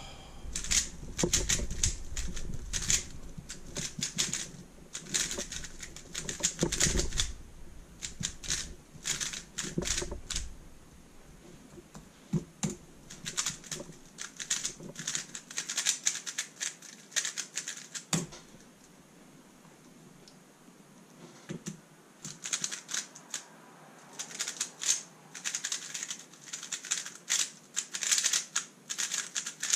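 Rapid clicking of a Thunderclap v3 M magnetic 3x3 speedcube being turned fast. The clicks come in dense runs for about the first ten seconds and again over the last eight, with only scattered clicks in between.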